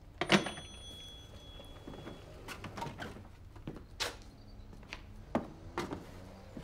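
Desk telephone receiver put down onto its cradle with a sharp clack, followed by a ringing tone that lasts about two seconds. Then a few scattered knocks and footsteps on a hard floor.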